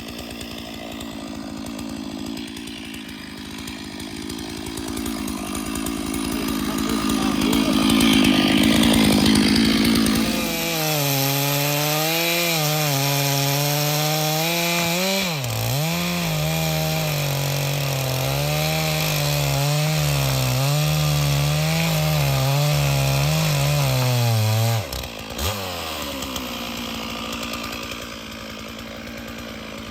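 Stihl chainsaw running at high revs and cutting wood, its pitch wavering and dipping briefly as the chain takes load. About 25 seconds in, the engine note drops off suddenly.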